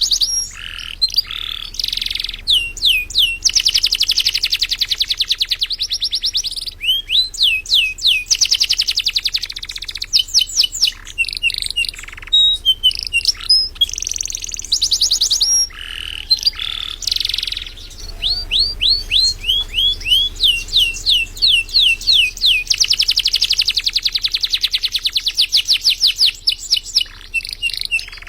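Domestic canary singing continuously in full song, long fast trills alternating with runs of quick down-slurred notes.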